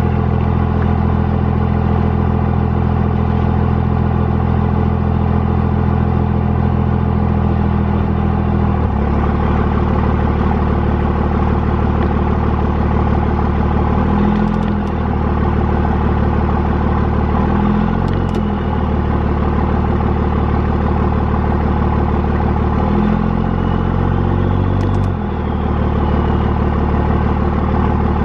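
Truck engine running steadily while it holds a Dyneema rigging line under heavy tension to pre-stretch it. The engine note changes about a third of the way in and shifts briefly a few more times, each shift with a short click.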